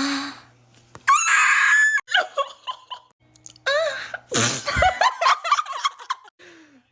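People's voices in several short outbursts of shrieking and laughter, with one high, held cry about a second in.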